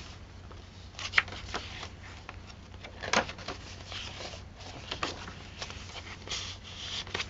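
Paper pages of a handmade journal being flipped and handled: soft rustles and swishes with scattered light taps and clicks.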